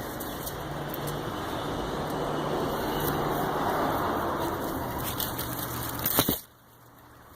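A vehicle passing, a steady rush with a low hum that swells and fades. It is followed by a few clicks and a sudden drop to a much quieter background about six seconds in.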